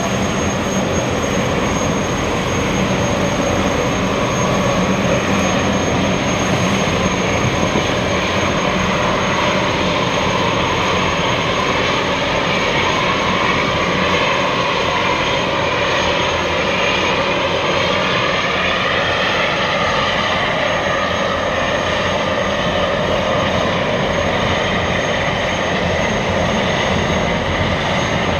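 Gas turbines of a Boeing Jetfoil 929-115 hydrofoil ferry running: a steady loud rush and low rumble, with a turbine whine that wavers slowly in pitch.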